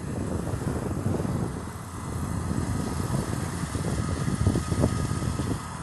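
Wind buffeting the microphone: a gusting low rumble that swells and drops, strongest about two-thirds of the way in.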